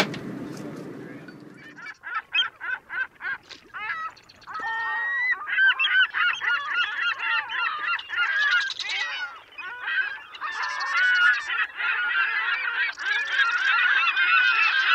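A low steady rumble cuts off about two seconds in; then a flock of birds calls, starting with a run of short calls about four a second and swelling into a dense, continuous chorus of squawking calls.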